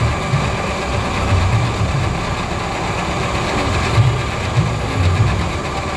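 Low, steady engine rumble of motor traffic close by, swelling and easing every second or so.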